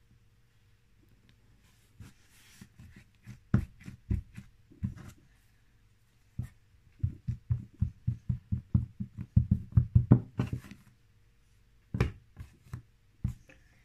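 A series of short, dull knocks and taps, scattered at first, then a quick run of them at about four or five a second in the middle, with a few more near the end.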